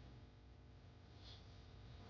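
Near silence: faint low room tone, with one brief faint high tick a little past halfway.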